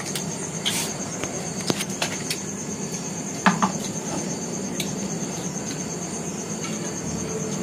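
Cricket chirring: a steady, high-pitched, evenly pulsing trill that carries on throughout, with a few soft clicks and taps over it.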